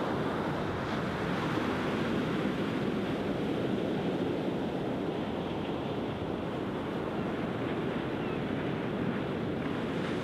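Sea surf breaking and washing up a flat sandy beach: a steady, continuous rush of waves.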